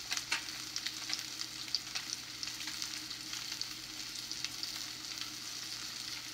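Salmon fillets searing in a hot non-stick frying pan: a steady sizzle with frequent small crackles and pops.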